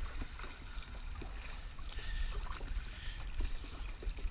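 Kayak paddle strokes in the water, with splashes and drips off the blade, over a low steady rumble.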